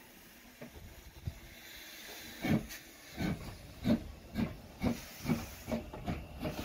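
Hunslet Austerity 0-6-0 saddle-tank steam locomotive hissing steam, then working away: from about two seconds in its exhaust chuffs start and quicken as it picks up speed.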